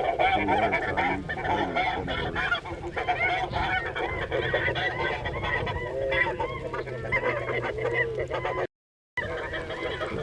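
A large flock of snow geese calling in a dense chorus of many overlapping short honks. The sound cuts out completely for about half a second near the end.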